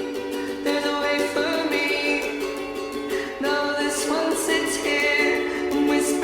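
A song playing: plucked strings with singing.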